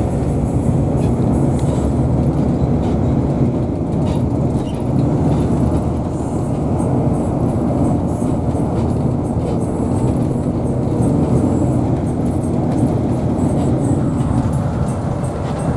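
Steady low rumble of a moving vehicle, with faint scattered ticks above it.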